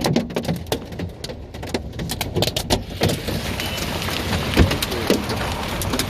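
Hailstones hitting a moving car, heard from inside the cabin. Scattered sharp clicks of single hits thicken into a dense, steady clatter about three seconds in.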